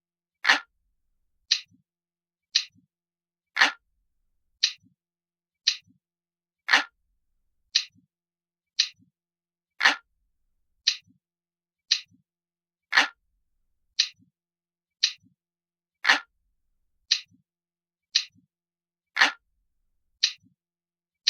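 Clock ticking sound of a countdown timer, about one tick a second, every third tick fuller and lower than the two lighter, sharper ticks between.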